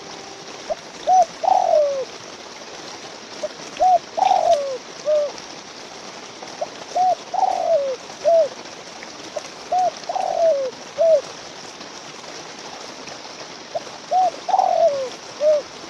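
Puter (Barbary dove) cooing: its three-part coo, a short note, a longer falling note, then a short note, comes five times about every three seconds over a faint steady hiss.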